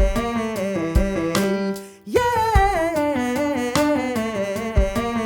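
A singer's voice running fast riffs, stepping quickly up and down through notes, over a backing track with a drum beat. About two seconds in one run ends, and the next starts with a quick swoop up and then runs down.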